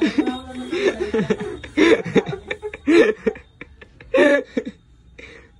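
Laughter in short repeated fits, with a few light clicks in between, dying away near the end.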